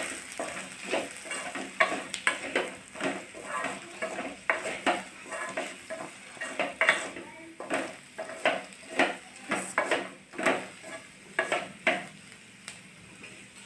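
Wooden spatula stirring and scraping diced ivy gourd (tindora) in a metal kadai, the pieces sizzling as they fry in oil with chilli-garlic powder. The scraping strokes come about twice a second and die away near the end.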